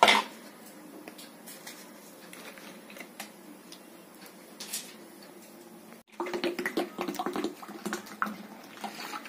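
A metal utensil clatters sharply, then water is poured into a bowl of yogurt and gram-flour kadhi batter. After a short break about six seconds in, a spoon clinks and rattles against the vessel.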